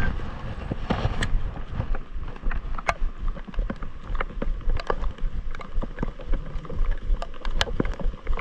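Wind rumbling on the microphone, with scattered light clicks and knocks from handling a baitcasting rod and reel in a kayak.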